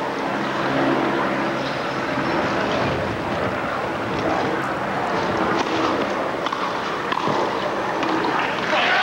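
Murmur and rustle of a large tennis crowd over a steady broadcast hiss, with a few faint knocks such as a ball being struck. The crowd noise grows louder near the end.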